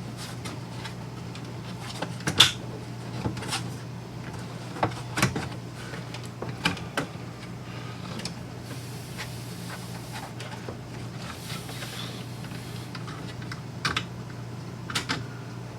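Pantry drawer being fitted onto its latching drawer slides: scattered clicks and knocks, with two short stretches of soft sliding hiss about midway through, over a steady low hum.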